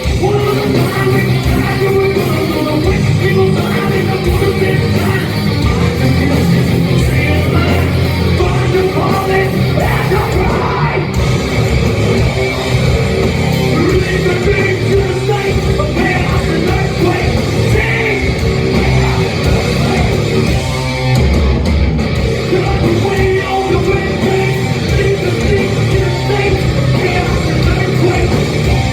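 Live heavy metal band playing loud: distorted electric guitars, bass and drums, with shouted and sung vocals.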